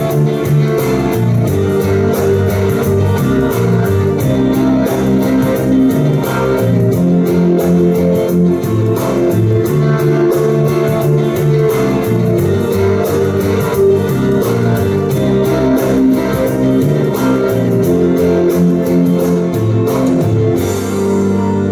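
Instrumental outro of a pop-rock song: guitar over bass and a steady drum beat. Near the end the drums stop and a held keyboard chord rings on.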